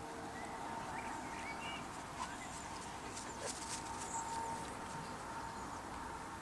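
Quiet outdoor background with a few faint, short high chirps in the first couple of seconds, then light clicks and rustles for a while, over a faint steady hum.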